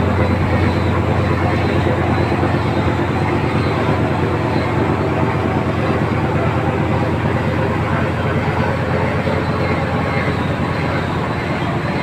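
Diesel inboard engine, an RF-10 (Nissan V10), of a new wooden skipjack fishing boat, running under way on its trial run. A loud, steady low drone with a fast firing beat, easing slightly toward the end.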